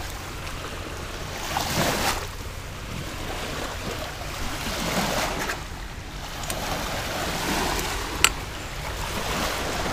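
Small lake waves lapping and washing on a sandy shore at the water's edge, swelling every two to three seconds, over a steady low wind rumble on the microphone. There is a single sharp click about eight seconds in.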